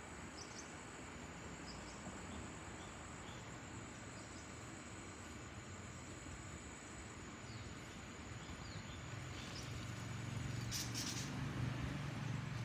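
Jet engine rumble of a Boeing 787-9 airliner flying overhead, low and steady, growing louder over the last few seconds. A few short bird chirps sound early on, and a brief high hiss comes near the end.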